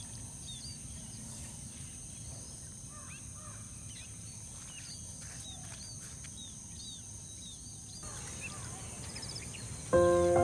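Small birds chirping now and then over a steady low hum and a thin, high-pitched whine. Music with held notes comes in near the end.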